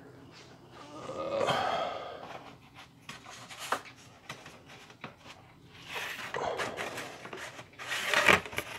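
A person breathing hard while reaching and rummaging for something on a shelf: scattered rustles and small knocks, with a louder rustle near the end.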